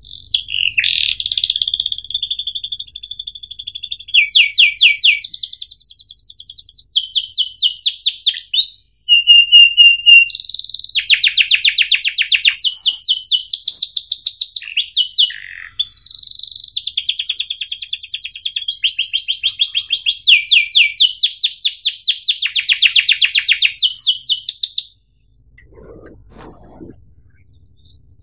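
White domestic canary singing a long song of rapid rolling trills and repeated chirps, phrase after phrase, each at its own pitch and speed. The song breaks off about three seconds before the end, leaving faint low sounds.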